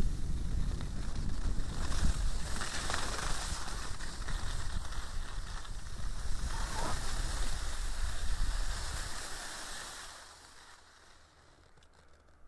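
Wind buffeting the microphone: a steady rushing rumble that dies away about ten seconds in.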